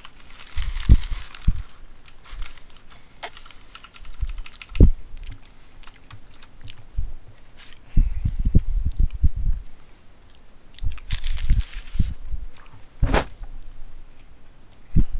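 A person chewing and biting into a footlong sub sandwich close to the microphone: irregular clusters of soft low thuds, with a few brief hissy rustles and a sharp click near the end.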